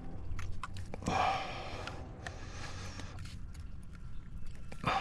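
A few light clicks from a motorcycle chain and its master link being handled and worked into place. A person breathes out shortly about a second in, over a low steady background rumble.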